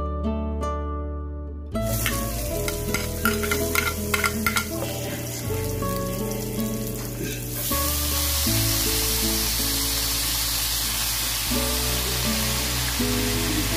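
Garlic and onion frying in hot oil in a nonstick frying pan, crackling and popping from about two seconds in. From about eight seconds it turns into a louder, steady sizzle as wet sweet potato leaves go into the pan. Background music plays throughout.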